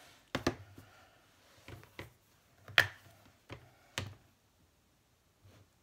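Scattered light knocks and clicks as a clear acrylic stamp block and other craft supplies are picked up and set down on a desktop, the sharpest knock about halfway through.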